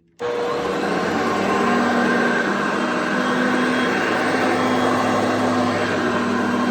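Hoover Concept Two Electronic direct-air upright vacuum cleaner switching on suddenly just after the start and running steadily at its medium power setting.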